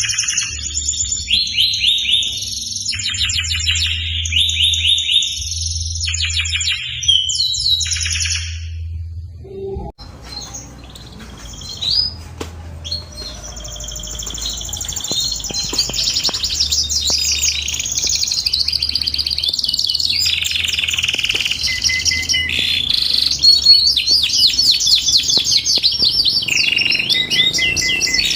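Domestic canary singing long, rapid trilled phrases. The song breaks off about a third of the way in, then resumes a few seconds later as one continuous run of fast rolling trills.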